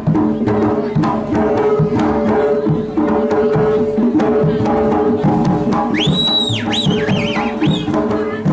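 Jaranan accompaniment music: hand drums playing a fast, dense pattern over steady ringing gong-chime tones. About six seconds in, a high whistle sounds, rising, holding, then warbling up and down a few times.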